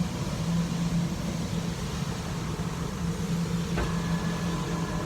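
Steady low hum of a running engine, pulsing slightly, with one sharp click nearly four seconds in.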